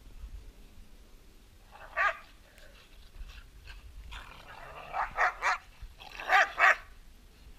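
Carolina dogs barking and yipping in play while wrestling: one short bark about two seconds in, a quick run of three around five seconds, and two loud barks near the end.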